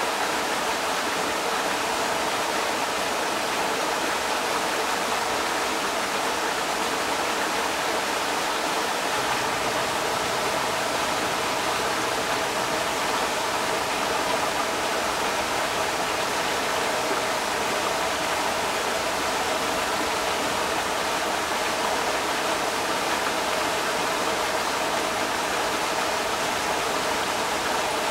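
Creek water rushing steadily over rocks, a continuous even roar with no breaks.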